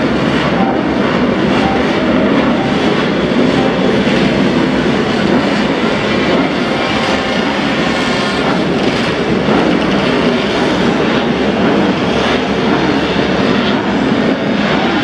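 Vintage pre-1972 racing motorcycle engines running on the circuit, a loud, steady engine noise without distinct pass-bys.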